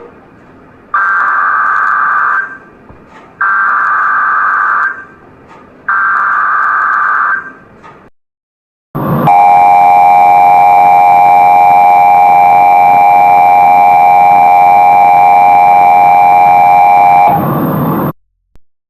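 Emergency Alert System tones: three bursts of the digital SAME header, each about a second and a half long, then after a short gap the steady two-tone EAS attention signal for about eight seconds, which cuts off abruptly.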